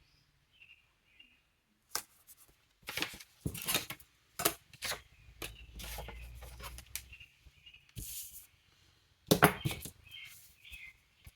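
Paper stickers being peeled and pressed onto a planner page: scattered short rustles, taps and peels, some louder than others. Faint bird chirps sound near the start and again near the end.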